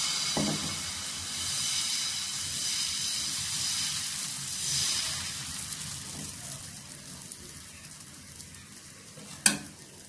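Thin pitha batter sizzling as it is poured onto a hot nonstick tawa and spreads, the sizzle fading over the next few seconds; a single sharp click near the end.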